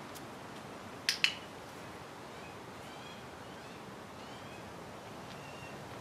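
Handheld training clicker pressed once about a second in, giving a sharp two-part click. The click is the marker signal telling the horse that touching the target was right.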